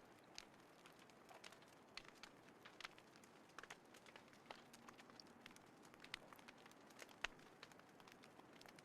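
Small wood fire crackling: faint, irregular sharp pops and snaps over a soft hiss, with the loudest snap about seven seconds in.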